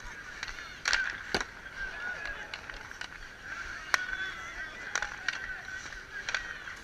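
Outdoor ice hockey play: several sharp clacks of sticks and puck, the loudest about a second and a half in and again near four seconds, over a steady background of crowd and player voices calling out.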